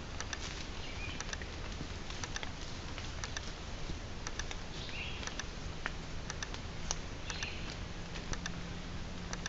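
Trail camera's own recorded audio: frequent, irregular sharp clicks over a steady low hum and background hiss, with a few short high chirps about a second in, around five seconds and again near seven and a half seconds. The clicking is typical of the Hawk Ray camera's recordings, which pick up a clicking sound while recording.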